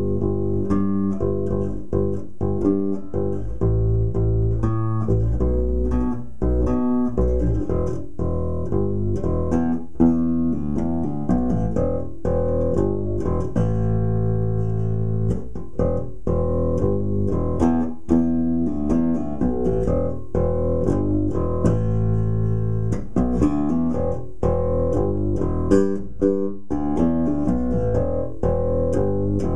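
Four-string electric bass played fingerstyle: a rock bass tune of runs and riffs, one plucked note after another with no pause.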